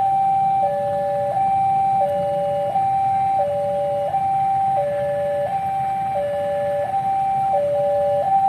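Railway level-crossing warning alarm sounding as the crossing closes for an approaching train: an electronic two-tone signal that alternates evenly between a higher and a lower note, each held about 0.7 s, over a low rumble of waiting traffic.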